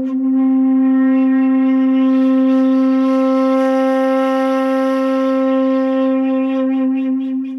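A single long held musical note with a wind-instrument-like tone, steady in pitch, wavering and fading out near the end: the closing note of the piece.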